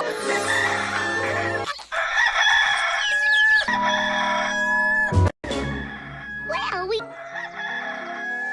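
Hollywoodedge stock rooster crow sound effect (Bird Rooster 2 Crow PE021501), played several times in a row over background music. It cuts off abruptly between takes, about one and a half seconds in and again around five seconds.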